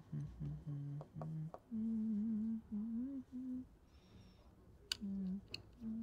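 A man humming a tune to himself: a string of short notes, then longer wavering held notes, with a pause partway through. A few light clicks come in between.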